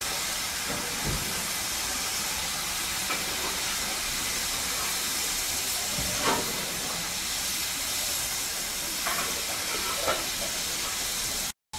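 Steady hiss of escaping steam from a standing BR Standard Class 4MT 2-6-0 steam locomotive, with a few brief faint sounds on top, the clearest about six seconds in.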